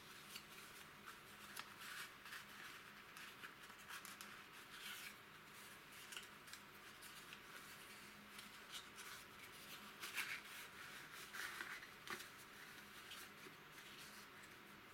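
Old cardboard tube carton being torn open by hand: faint, irregular crackling and rustling of dry card and paper, with louder rips about ten seconds in and again a second or so later.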